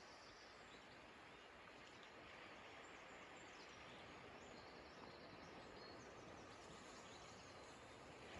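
Near silence: faint, even outdoor hiss with a few faint, high bird chirps in the middle.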